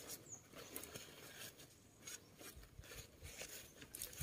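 Faint, irregular rustling and crinkling of white packing wrap as hands pull it out of a cardboard box.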